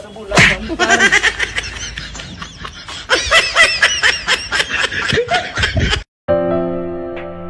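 A quick run of high, choppy laughing sounds, several a second, over background music. About six seconds in it cuts off for a moment, and soft music with long held notes begins.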